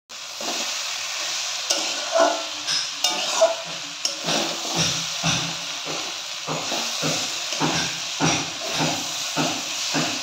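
Potato strips and chickpeas sizzling in oil in a metal kadai, stirred with a metal spatula that scrapes the pan. From about four seconds in the scraping falls into a steady rhythm of about two strokes a second.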